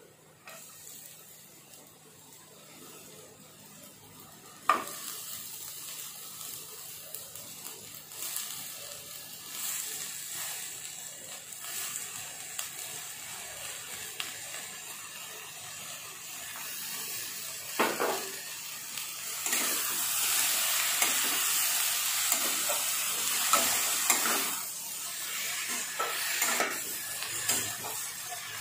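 Chopped cabbage, capsicum and tomato sizzling in hot butter and oil in a non-stick kadai, with a sharp knock about five seconds in and another near eighteen seconds. The sizzle is loudest a little after twenty seconds. Near the end a spatula scrapes and clacks against the pan as the vegetables are stirred.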